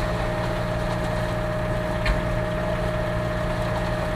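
Concrete mixer truck's CAT C13 diesel engine idling steadily, with a constant thin whine above the engine note and one faint tick about halfway through.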